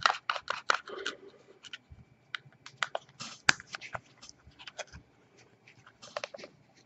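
Irregular small clicks and scrapes as a stainless-steel Fogger V2 RBA atomizer is screwed onto a box mod and the mod is handled.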